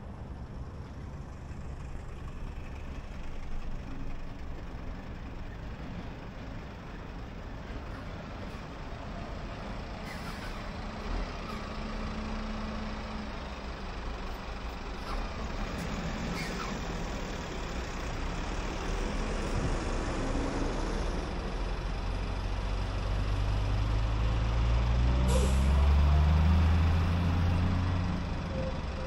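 Steady tyre and wind noise of a car travelling at expressway speed. Near the end a vehicle engine's drone grows louder and rises in pitch, then fades.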